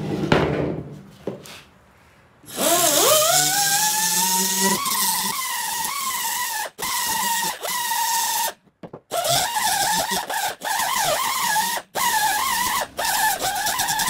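A sharp knock, then about two and a half seconds in an air-powered die grinder spins up with a rising whine. It grinds the broken cast-iron wheel piece to fit, the pitch wavering under load, and cuts out briefly several times as the trigger is let off.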